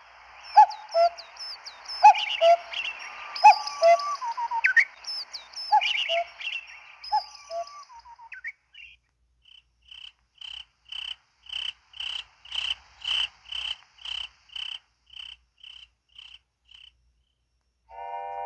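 MS500 mobile phone ringtone made of nature sounds: bird chirps and frog-like calls over a hiss for about eight seconds, then, after a brief pause, a cricket-like chirping at about two chirps a second that grows louder and then fades away.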